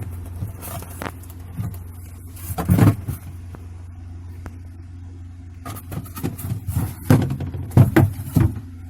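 Several knocks and clatters of objects being handled and moved about, over a steady low hum.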